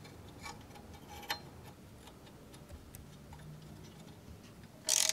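Faint scattered metallic clicks and taps from handling a bracket and its bolt by hand, then a short loud rasping burst near the end.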